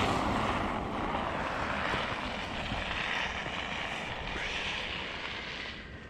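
A car driving past on a snow-covered street, its tyres hissing over the snow, fading steadily as it moves away.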